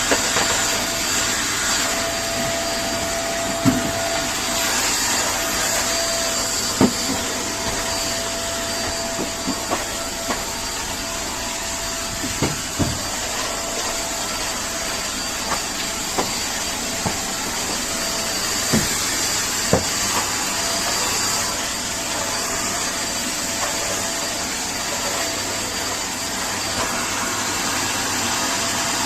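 Vacuum cleaner running steadily, a continuous rushing noise with a faint steady tone in it, broken by a few short sharp knocks at scattered moments.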